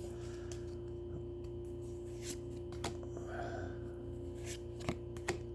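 Pokémon trading cards being handled and slid through the fingers: soft rubbing with a few faint clicks, the loudest near the end, over a steady low hum.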